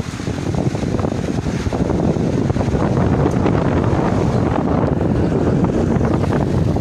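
Loud, dense rushing noise on a phone microphone, the muffled din of a crowded room, building over the first two seconds and then holding steady.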